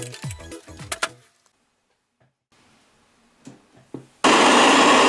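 Music with a deep beat cuts off about a second in. After a near-silent gap with a couple of faint clicks, loud steady radio static hiss starts suddenly near the end: the repaired tuner of a Sharp GF-6060H boombox between stations.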